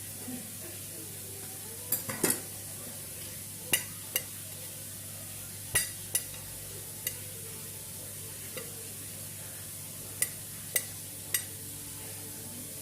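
Food sizzling in a frying pan with a steady hiss, while a cooking utensil stirs it and knocks sharply against the pan about ten times.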